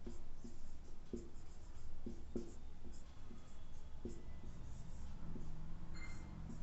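Marker pen writing on a whiteboard: a run of short, irregular scratching strokes as letters are written.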